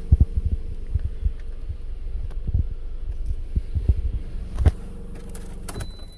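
Irregular low thumps and bumps over a steady low hum, with a few sharp clicks near the end.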